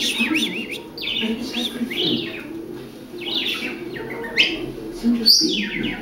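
Budgerigar chirping and warbling in short bursts of quick rising and falling chirps, about one burst a second, with a sharper, louder call about five seconds in.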